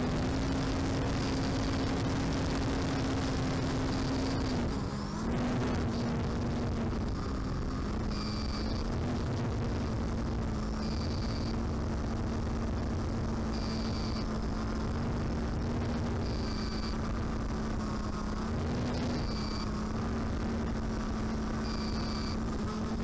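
Electric motor and propeller of a small FPV UAV heard through its onboard camera: a steady hum with slight pitch steps as the throttle changes, and a brief dip about five seconds in, over wind rush on the microphone. A short high beep repeats every two to three seconds, clearest from about eight seconds in.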